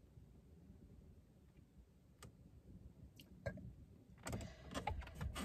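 Quiet car cabin: a faint low hum with a few soft clicks, then about a second of louder shuffling noise near the end.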